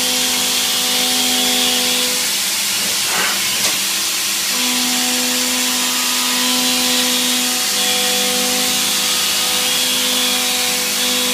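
YCM FV56A CNC vertical milling machine running, with a loud steady hiss and a steady spindle hum. The hum stops for about two seconds, with a brief sweep and a click in the gap, then resumes.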